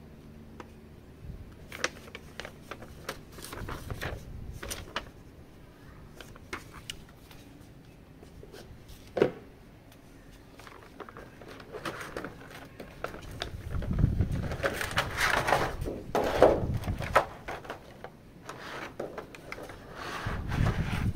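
Close handling sounds of a plastic action figure and its packaging: scattered small clicks and taps, with a louder stretch of rustling and knocking about two-thirds through and again near the end.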